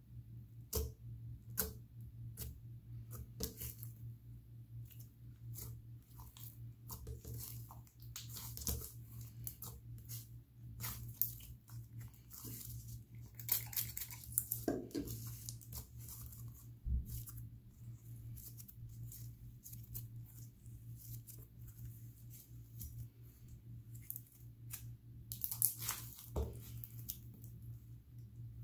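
Glittery inflating slime being pressed, stretched and folded by hand: an irregular run of sticky clicks and crackling pops as trapped air squeezes out, with louder bursts of crackling now and then.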